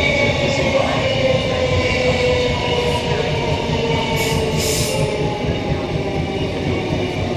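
Queensland Rail EMU electric multiple unit slowing into a station, heard from inside the car: the whine of its traction equipment falls slowly in pitch over a steady rumble of wheels on track. A short hiss comes about four seconds in.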